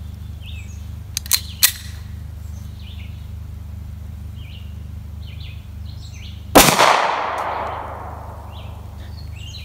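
A single shot from a Makarov 9×18mm semi-automatic pistol, its report ringing out and fading over about two seconds. Two sharp clicks come earlier, and birds chirp now and then over a steady low rumble.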